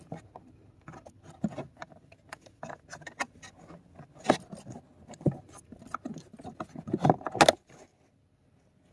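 Plastic charcoal cabin filter housing of a BMW F-series being worked loose and pulled down by hand: a string of clicks, knocks and rattles, the sharpest snaps about four and seven seconds in.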